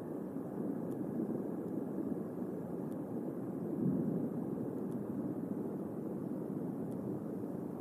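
Thunderstorm noise: a steady low rumble that swells briefly about four seconds in.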